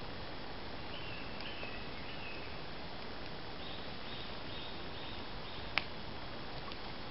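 Wood campfire burning with small crackles and one sharp pop near the end. A bird calls in the background: a few short chirps early on, then a run of about four notes just past the middle.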